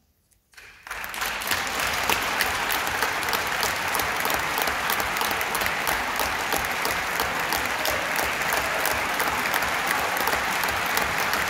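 A moment of near silence, then an audience breaks into applause under a second in and keeps clapping steadily.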